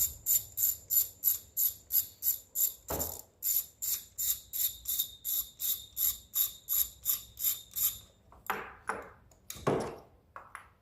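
Ratchet wrench with a spark plug socket clicking steadily, about four clicks a second, as a spark plug is backed out of the engine. The clicking stops about eight seconds in, followed by a few light knocks.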